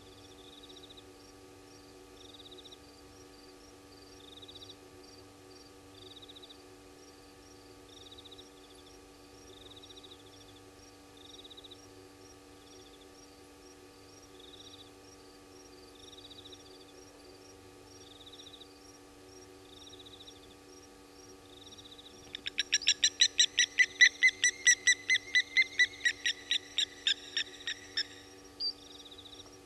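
A night bird giving a rapid series of about twenty sharp, high calls, about three or four a second, for some six seconds near the end. Under it, faint insects chirp steadily about once every second and a half.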